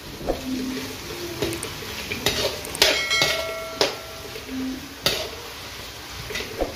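Spoon and glass bowl clinking and knocking against a steel kadai as chopped carrot is tipped in and stirred, about seven sharp clinks with one ringing briefly about three seconds in, over a low sizzle of onion and tomato frying in oil.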